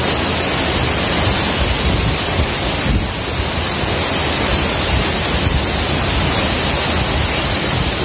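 Waterfall pouring into its plunge pool: a loud, steady rush of water.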